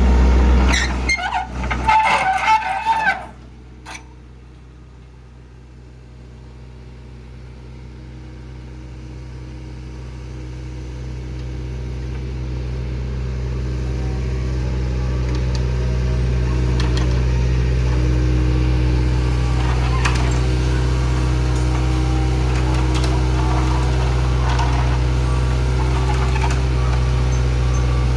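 A brief loud jumble of sound, then a heavy machine's diesel engine running at a steady speed, growing louder over about ten seconds and then holding.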